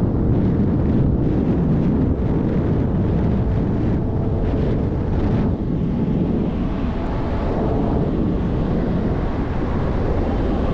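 Steady wind buffeting the microphone of a rider on a moving electric dirt bike, a continuous low rush.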